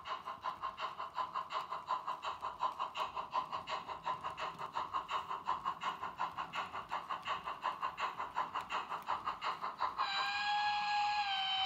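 Sound decoder of a Märklin HO model steam locomotive playing an even steam chuffing rhythm, about four to five chuffs a second. About ten seconds in, the chuffing gives way to a multi-tone steam whistle held steadily to the end.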